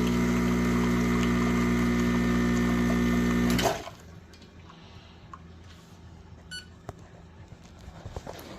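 Espresso machine's pump humming steadily as a shot is pulled, then shutting off suddenly about three and a half seconds in; after that only a few faint clicks.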